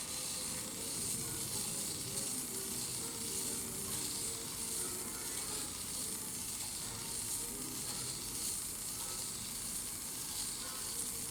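A CPU die being hand-sanded on 1500-grit sandpaper, giving a steady, scratchy high hiss of abrasive rubbing on the chip.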